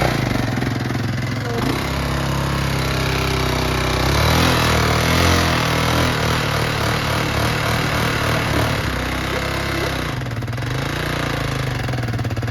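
Freshly started ATV engine running and being revved: the revs climb about four seconds in and ease back down near the end.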